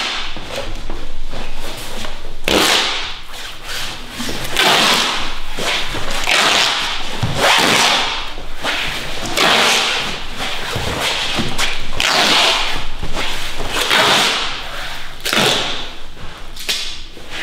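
Adhesive tape being pulled off the roll in repeated rasping rips, every second or two, as it is laid and pressed down along the joints of carpet underlay.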